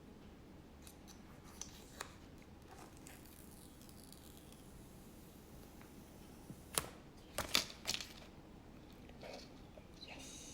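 Quiet handling of iPhone box packaging: a few faint clicks, then a short cluster of sharp paper-and-cardboard scrapes and taps about seven to eight seconds in.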